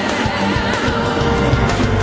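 Gospel song with a full band: a wavering melody line over sustained chords and a steady bass.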